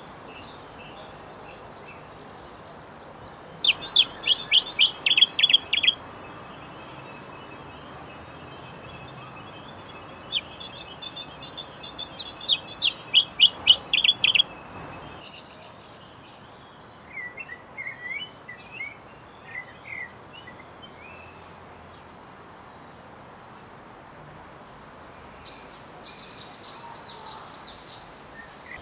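Birdsong played by a sound installation's loudspeakers in the trees, generated from sensor readings of wind and light: a quick run of high repeated chirps, about three a second, then two bursts of fast descending trill notes over a thin steady high whistle. After a pause, softer lower chirps come around the middle, and the rest is a quieter background hiss.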